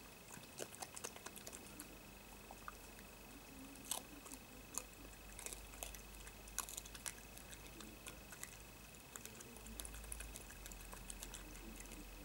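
European badger eating from a dish: faint, irregular crunching and chewing clicks, coming in quick clusters with short pauses between.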